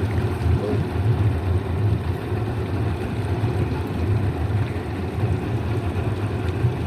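Motorboat engine idling in neutral, a steady low running.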